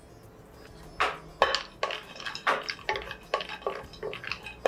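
A metal spoon clinking and scraping in a small metal pan as broken cashews are stirred and roasted in ghee, with sharp clinks about three times a second from about a second in.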